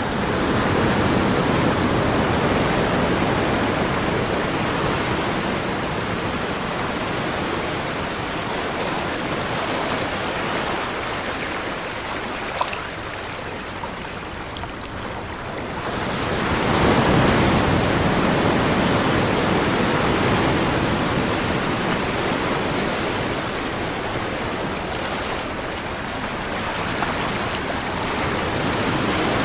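Ocean waves washing on a shore in a continuous rush that rises and falls, easing into a lull before a fresh wave surges in about halfway through.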